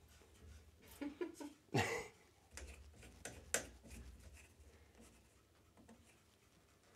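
A few light knocks and clicks from handling parts or tools, the loudest about two seconds in with a short downward-sliding squeak after it.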